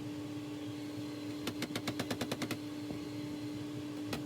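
A steady hum with a fast run of sharp clicks, about ten a second, lasting about a second midway; another run starts right at the end.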